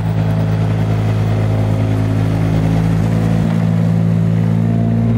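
Tractor engine running steadily at an even pitch, coming in suddenly at full volume: an engine sound laid over the pictures of a plastic push-along toy tractor.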